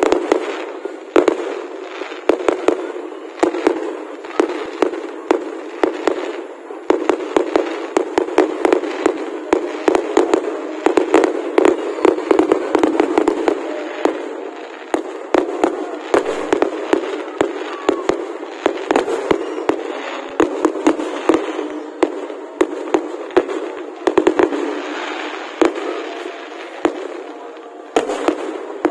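Aerial fireworks going off in a dense, continuous volley of bangs and crackling bursts, several each second.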